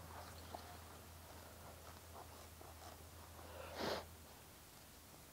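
Scissors cutting through neoprene vest fabric: faint snips, with one short louder rush of noise about four seconds in.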